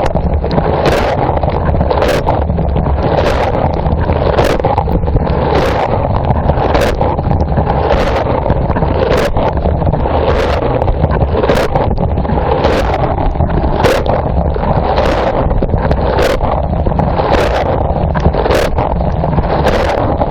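Dishwasher wash cycle heard from inside the tub: water rushing and spraying over a steady low pump hum, with a sharp splash of water about once a second as the rotating spray arm sweeps its jet past.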